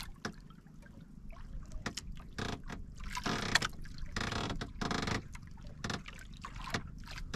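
Water sloshing and slapping against the hull of a small outrigger boat, in a few surges about three to five seconds in, with scattered small knocks and clicks.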